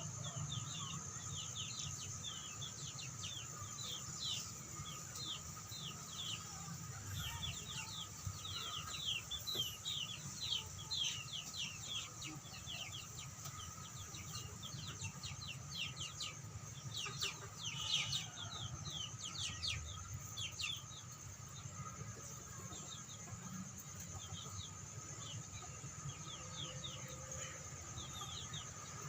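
Native chickens (ayam kampung) calling, with a dense run of short, high chirps that each slide down in pitch. The chirping is busiest through the first two-thirds and thins out near the end.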